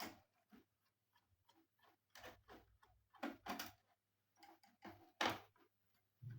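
Irregular clicks and light knocks of hands and tools handling the plastic and metal parts of an all-in-one PC during disassembly, a few louder knocks midway and near the end.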